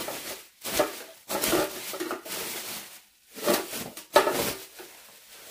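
Plastic foil packaging rustling and crinkling in irregular bursts as a part is unwrapped, with a sharp knock a little after four seconds in.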